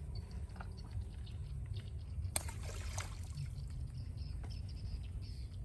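Small splashes and dribbling water as small fish are let go by hand from a plastic bucket into a shallow pond, with two sharper splashes about two and a half and three seconds in. A steady low rumble runs underneath.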